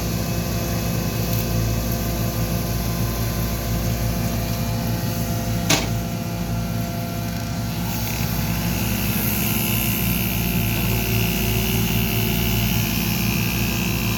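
Excavator engine running steadily under load, with a sharp knock a little before halfway and a higher whine joining in just past the middle.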